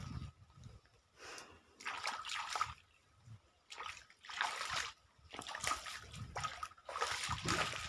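Hands splashing and scooping in a shallow muddy field channel, in about four irregular bursts of sloshing water.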